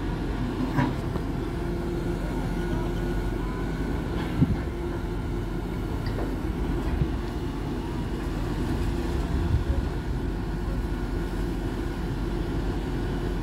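Diesel engine of a grapple truck running steadily to power its hydraulic knuckle-boom loader as it picks up logs. Occasional knocks of wood and metal come through, the loudest about four and a half seconds in.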